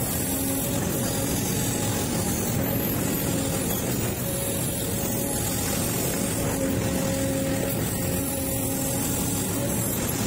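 Hydraulic excavator's diesel engine running steadily under working load, with a steady whine over it, heard from the operator's cab.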